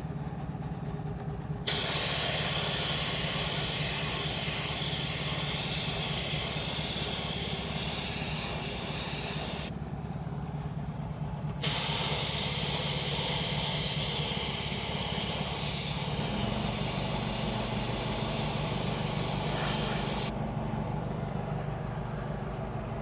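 Two long passes of paint being sprayed onto an alloy wheel in dark hyper silver, each an even hiss of about eight seconds that starts and stops abruptly, with a short break between. A steady low hum runs underneath.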